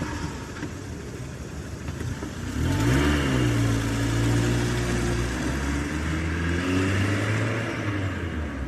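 Engine running with a low steady note, revving up about three seconds in and holding at the higher pitch.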